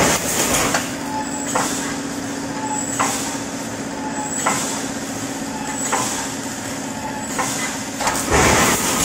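Automatic wire mesh panel welding machine running: a steady hum, with a sharp clack about every second and a half as it cycles, each followed by a short hiss. A louder, longer burst of noise comes near the end.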